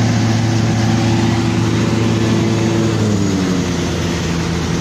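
Hitachi 520 excavator's diesel engine running steadily at high revs, then dropping in pitch about three seconds in and settling to a lower, steady run.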